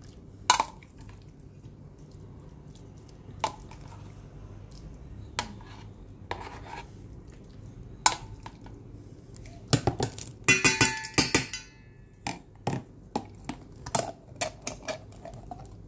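Dog food being knocked and scraped out of a tin can into a stainless steel bowl: scattered metal clinks and knocks, with a burst of ringing metallic clatter about ten seconds in.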